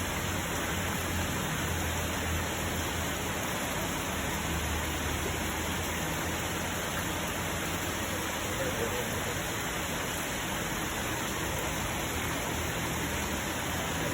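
Steady, even hiss of water noise, like rain falling, with no breaks.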